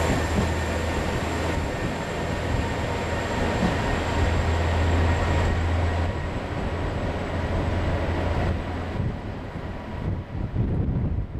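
Train running at a station platform: a steady low hum with faint thin whines, easing off after about nine seconds, leaving wind buffeting the microphone.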